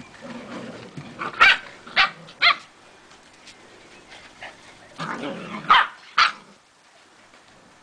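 Samoyed puppies yipping and barking in play: three short, high barks about a second and a half in, then two more near the middle of the clip.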